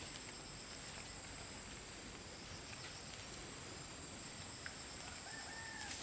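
Faint outdoor rural background: a steady high insect drone with a few faint ticks, and a short pitched animal call, slightly falling, about five seconds in.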